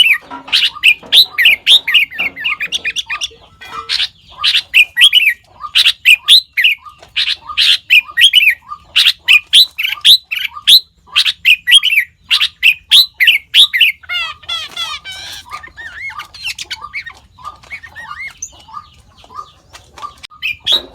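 Sooty-headed bulbul calling close by in a fast string of short, sharp, sweeping notes, with a quicker twittering run about two-thirds of the way through.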